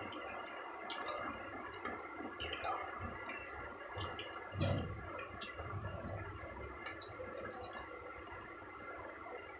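Hands squishing and turning raw chicken pieces in a yogurt marinade in a bowl: a run of wet clicks and squelches, with a dull knock about halfway through.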